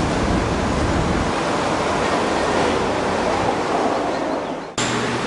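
Steady rushing of waves, which cuts off abruptly near the end.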